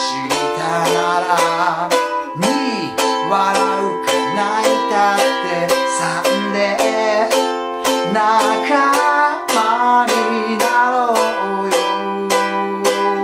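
A man singing along to his own small ukulele, strumming simple chords in a steady rhythm.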